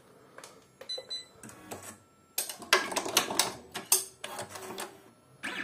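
Happy multi-needle embroidery machine running its thread-trim cycle: a run of mechanical clicks and rattles from the thread cutter and catcher, sparse at first and busiest from about two seconds in. The trim cycle is working normally, as the owner judges it.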